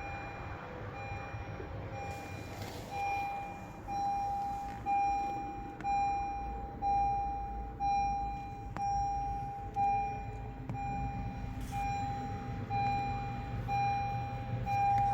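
A car's warning chime beeping steadily, one even tone repeated about once a second, over a low hum.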